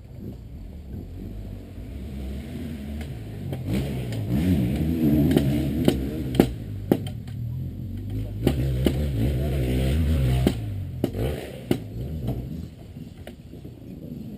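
Dirt bike engine running, growing louder and revving through the middle, then dropping away about ten and a half seconds in, with a few sharp clicks scattered through it.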